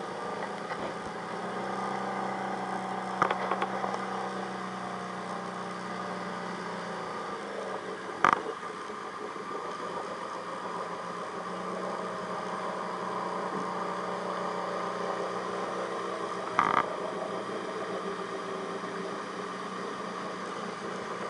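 ATV engines running at low, fairly steady revs, their pitch sagging and picking up a little, as the machines churn slowly through deep mud and water. Three short sharp knocks stand out: a few seconds in, about eight seconds in, and about three quarters of the way through.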